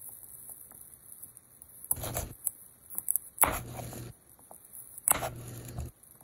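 Kitchen knife cutting raw baby carrots on a plastic cutting board: about four separate, unevenly spaced cuts, each a sharp chop through the hard carrot onto the board, with small clicks of carrots being shifted in between.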